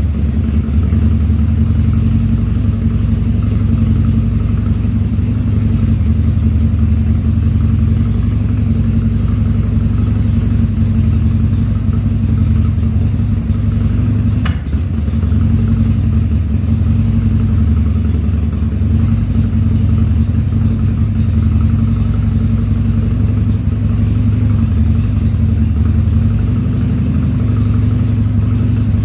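2000 Harley-Davidson Sportster 1200's air-cooled Evolution V-twin running steadily at idle on its first start after a carburetor rebuild, with no air cleaner fitted. About halfway through it briefly stumbles, with a short dip and a click.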